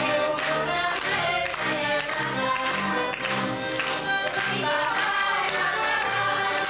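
Live band music led by a violin, its melody running over a steady low beat of about two pulses a second.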